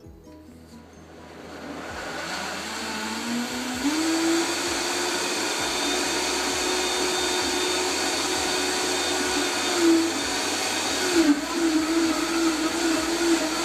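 Vitamix blender motor spinning up over the first few seconds, its hum rising in pitch, then running steady at high speed while blending cantaloupe and romaine lettuce with water. The pitch wavers unevenly near the end.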